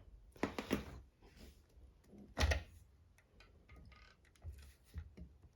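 Clicks and knocks of an electric scooter's folding stem mechanism being worked by hand during adjustment, with one louder clunk about two and a half seconds in.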